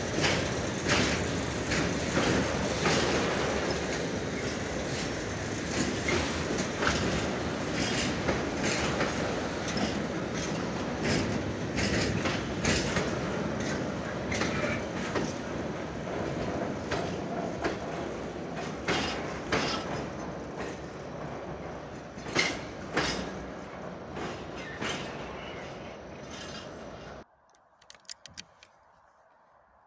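Tank wagons of a freight train rolling past: a steady rail rumble with wheels knocking over the rail joints in an irregular clatter. About 27 seconds in the sound cuts off abruptly, leaving near silence with a few faint clicks.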